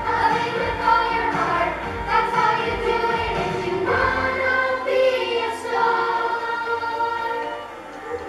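A children's choir singing a song with instrumental accompaniment; the low bass of the backing drops away about halfway through.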